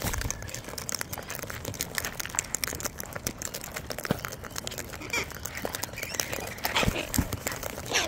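Sulphur-crested cockatoos cracking sunflower seeds and rummaging through a tub of mixed seed: a dense, irregular run of small crunching clicks.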